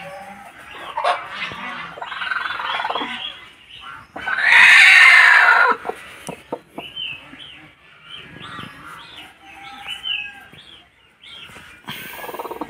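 Chickens calling: runs of short, high, quickly repeated calls, broken about four seconds in by one loud, harsh squawk that lasts over a second.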